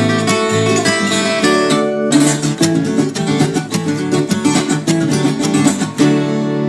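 Viola caipira, the Brazilian ten-string folk guitar, played with plucked and strummed chords in a continuous run of notes. A new phrase starts about two seconds in.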